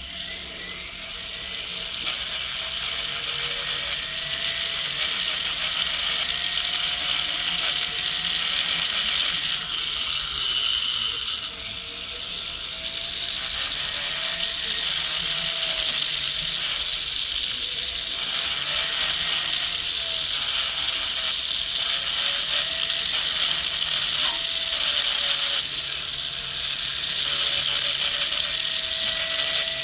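Rotary tool (flex-shaft handpiece) running an abrasive bit against the outside of a gold ring shank: a steady motor whine that sags and rises in pitch as the speed and pressure change, under a loud gritty grinding hiss. It spins up at the start and eases off briefly about twelve seconds in.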